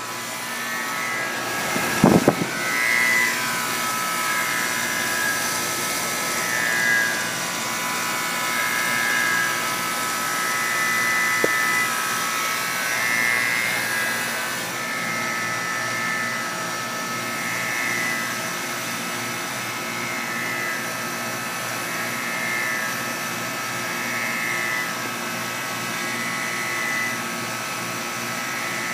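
Guardian air conditioning unit running with a steady hum, over which a high, wavering whine swells and fades every second or two: the funny noise it makes after standing unused for a while. A sharp knock sounds about two seconds in.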